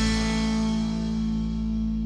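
The closing chord of a power-blues rock song ringing out after the last drum hit: a sustained electric guitar chord, held steady and slowly fading.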